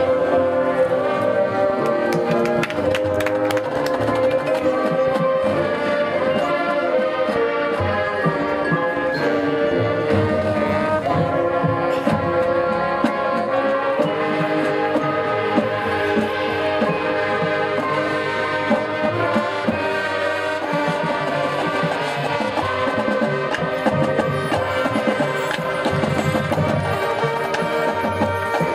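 High school marching band playing its field show: brass chords held over steady percussion.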